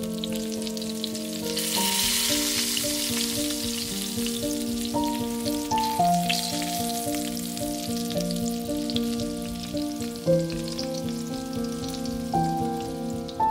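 Food frying in hot oil in a pan, a steady sizzle with fine crackles that grows louder about two seconds in, under light background music.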